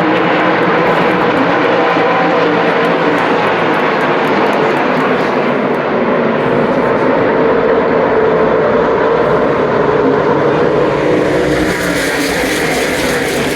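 NASCAR stock car V8 engines running at speed on track in a loud, steady drone, with a slight change in pitch and tone near the end.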